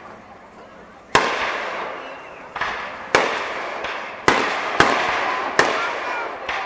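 Aerial fireworks going off: about seven sharp bangs at irregular intervals, starting about a second in, each trailing off in a fading echo.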